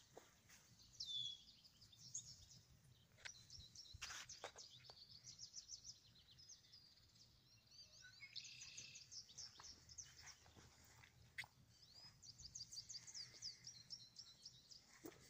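Faint songbirds singing: rapid trills of high chirps that come in short runs every few seconds.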